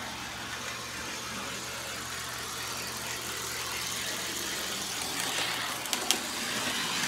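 Ives toy-train electric motor running along the track, its commutator patched with a copper penny where a plate was missing: a steady whirring rattle of motor and wheels over a low hum, with a couple of sharp clicks about six seconds in.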